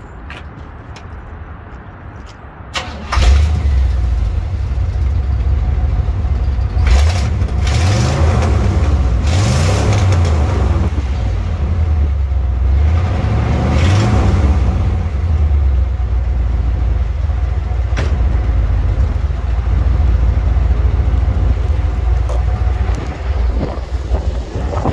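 A 1980 Corvette's V8 starting about three seconds in. It is revved a few times, the pitch rising and falling, then settles into a steady idle through its dual exhaust.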